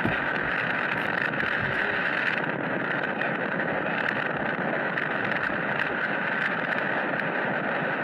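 Steady rushing of wind on the microphone mixed with the running noise of a vehicle, heard from the moving vehicle itself.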